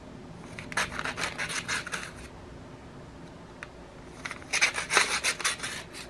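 Paper envelopes rustling and scraping as they are handled and pulled apart, in two runs of quick scratchy strokes: one starting about half a second in, another about four seconds in.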